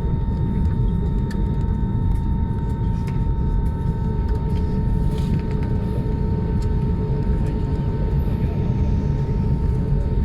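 Steady rumble of airliner cabin noise: engines and airflow heard from inside the passenger cabin, with a faint steady whine over it.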